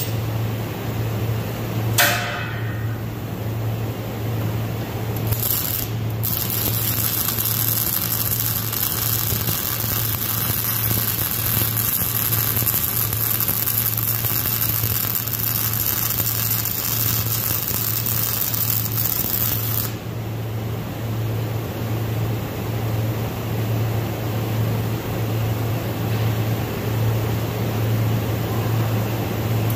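MIG welding arc running with a steady hiss for about fourteen seconds, starting around six seconds in and stopping abruptly. A steady low hum runs underneath throughout, and a single sharp metallic clank sounds about two seconds in.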